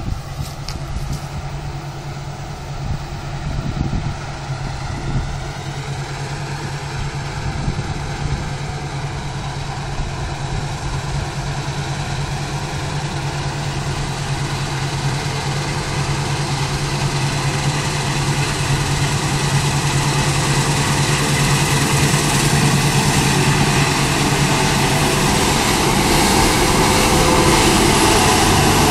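Claas Lexion 670 combine harvester running while harvesting wheat, a steady engine-and-machinery hum that grows louder as the combine approaches and passes close by.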